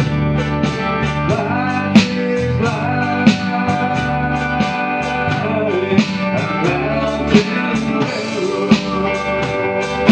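Small country-gospel band playing live on strummed acoustic and electric guitars with drums. The strumming keeps an even rhythm, with a loud accent about every second and a half, and a melody line slides in pitch over it.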